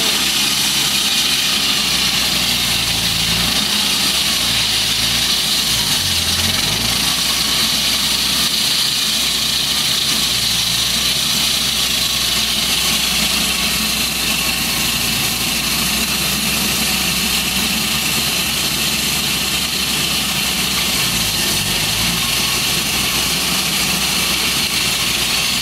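Engine-driven walk-behind concrete slab saw cutting road pavement: a steady, loud high hiss and whine over the running engine, whose low note dips and shifts a few times.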